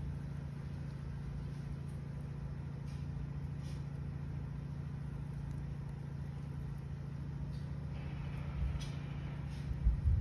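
An engine idling, a steady low hum with no change in pitch, with a few low bumps near the end.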